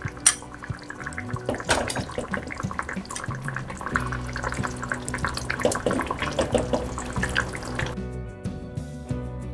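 A steel ladle scoops thin bean curry from a steel pan and pours it into a small bowl: liquid splashing and dribbling, with sharp clinks of metal on metal, the loudest just after the start. Soft background music runs underneath and is left alone for the last second or so.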